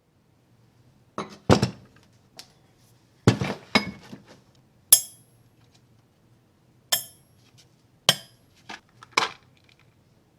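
A series of about a dozen clinks and knocks of hard objects, metal on metal, being handled and set down, spread unevenly over several seconds; two of them, near the middle, ring brightly.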